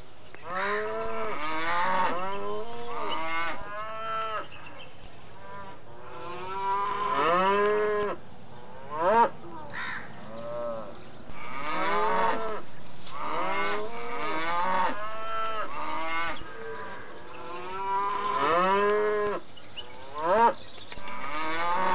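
Several cattle mooing over and over, their long calls overlapping, some higher-pitched and some deeper.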